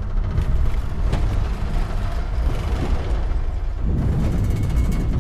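Film sound of a spacecraft passing through a wormhole: a loud, deep, continuous rumble and buffeting with a few sharp jolts early on. The rumble grows fuller about four seconds in.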